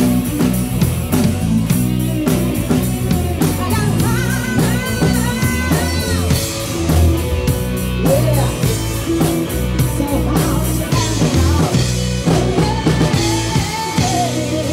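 Live rock band playing: a woman sings into a microphone over electric guitar and a drum kit with a steady beat.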